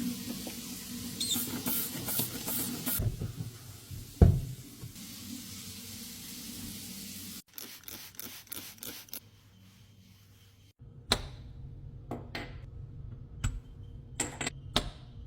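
Household cleaning handling noises: a hiss with scattered clicks, one loud knock about four seconds in, then more taps and clicks, with the sound breaking off abruptly twice.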